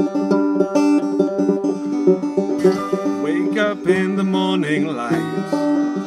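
Banjo and acoustic guitar playing an instrumental passage together, the banjo picking quick runs of notes over the guitar.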